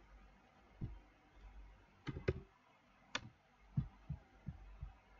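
Faint clicks from working a computer: two quick clicks about two seconds in and a third about a second later, among soft low thumps.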